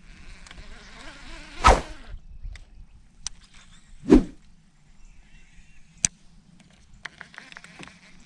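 Steady low electric hum, typical of a boat's electric trolling motor, running under the fishing. Two loud sharp knocks come about one and a half and four seconds in, with scattered small clicks between.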